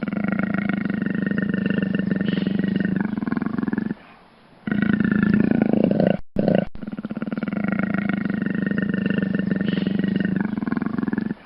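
A large animal's long, rough roaring call, given twice with a short break between. The second call repeats the first, as if the same recording were looped.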